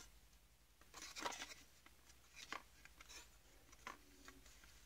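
Faint handling noise of a Saeco brew group's plastic housing being turned over and fitted together by hand: a short scrape about a second in, then a few light clicks of plastic on plastic.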